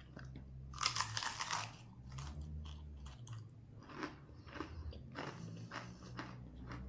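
A person takes a loud crunchy bite of crisp food, then keeps chewing, with a string of shorter crunches.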